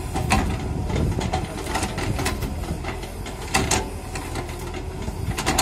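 JCB tracked excavator's diesel engine running steadily as it digs, with repeated sharp metallic clanks and knocks from the bucket and boom at work, a close pair of them past the middle.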